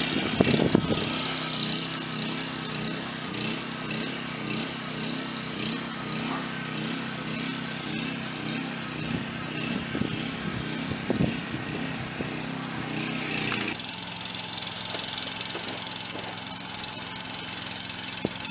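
Small gasoline-engine water pump running steadily at constant speed, pumping river water into the dam. Its tone shifts slightly about two-thirds of the way through.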